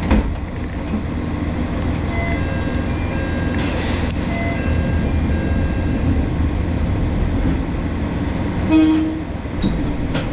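Moka 14 series diesel railcar's engine idling steadily while standing at a station, with a short hiss about four seconds in and a brief horn toot near the end.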